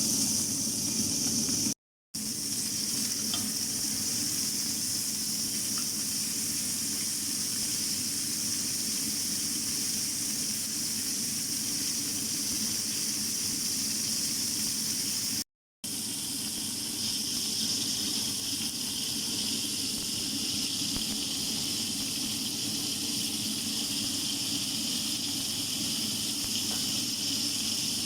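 Food sizzling steadily in a hot pan, broken twice by abrupt silent cuts about 2 and 15 seconds in.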